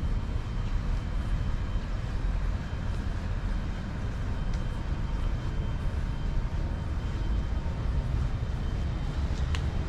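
Steady low rumble of city background noise, with a brief click near the end.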